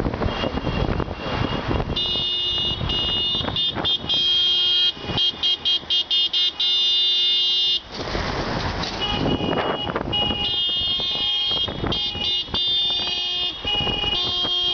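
Several car horns honking in protest, one after another and overlapping: a rapid string of short toots, then a long blast, then more horns after a short break. Wind buffets the microphone before the horns start.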